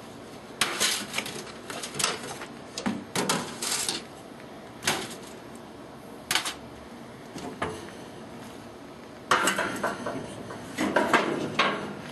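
Metal clinks and scrapes from a long-handled tool knocking and dragging on a barrel smoker's metal grate, in irregular bursts, with a longer run of clatter near the end.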